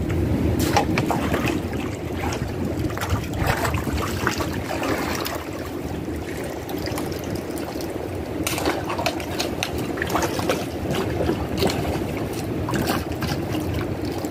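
Shallow creek water splashing and sloshing in irregular bursts as someone wades through it in waders and sweeps a dip net through the water, over a steady low rumble.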